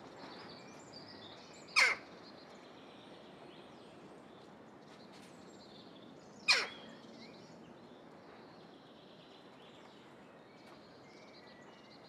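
A jackdaw calls twice, nearly five seconds apart. Each is a single short call that falls in pitch.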